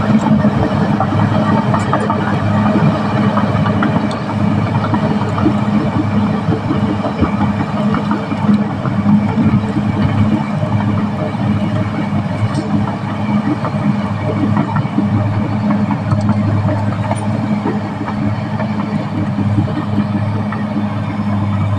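Caterpillar D6R XL bulldozer's diesel engine running steadily at a constant pitch, with a dense rattle over the drone.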